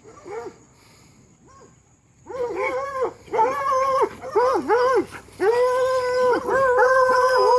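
Hound dogs baying and howling: a couple of faint calls at first, then from about two seconds in a string of loud drawn-out howls, one after another, some held for over a second.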